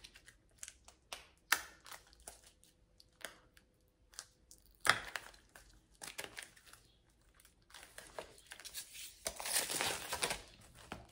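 Clear plastic packaging crinkling as it is handled and pulled open. Scattered crackles give way to a sharp snap about five seconds in, then denser crinkling over the last few seconds.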